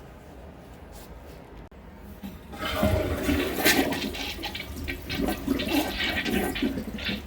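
Toilet flushing: about two and a half seconds in, water rushes into the bowl with uneven gurgling and splashing. It is a weird, poor flush from a toilet that has not been flushing properly.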